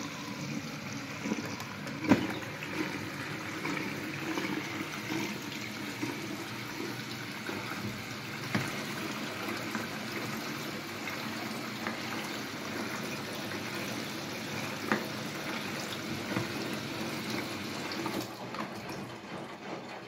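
Bosch Serie 4 front-loading washing machine drawing in water through its inlet valve at the start of a programme: a steady rush of water that starts suddenly and cuts off a little before the end. A few short knocks sound over it, the sharpest about two seconds in.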